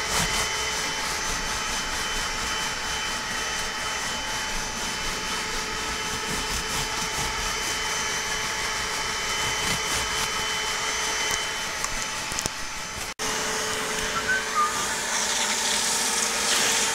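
Bissell Little Green portable upholstery cleaner running steadily with a whine, while a hand brush scrubs the cloth seat fabric. The sound cuts out for an instant once.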